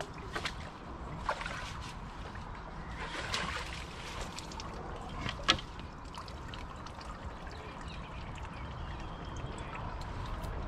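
Water trickling and lapping at the water's edge over a steady wind rumble on the microphone. A few sharp clicks of tackle being handled come through, the loudest about five and a half seconds in.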